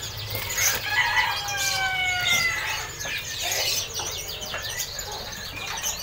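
A rooster crows once, a drawn-out call of about a second and a half that falls slightly in pitch, starting about a second in, over the scattered chirping of caged birds.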